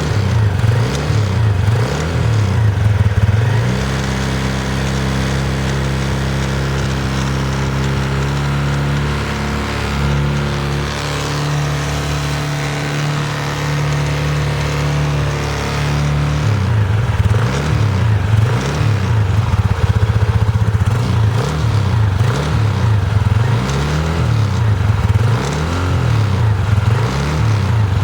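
PGO Tigra scooter engine running on its centre stand. About four seconds in, the throttle is opened and held steady for roughly twelve seconds, spinning the rear wheel, then it drops back to idle. With the wheel driven under power, the rear brake caliper makes an abnormal noise that is absent when the wheel is turned by hand.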